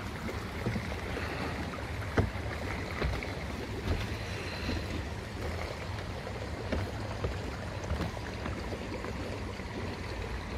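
Steady outdoor ambience, mostly a low rumble of wind on the microphone, with a few faint scattered clicks.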